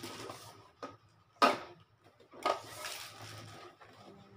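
Handling noise from a Brother JA1450NT sewing machine's plastic body as it is lifted and turned over by hand. There is one sharp knock about a second and a half in, and bumping and rubbing before and after it.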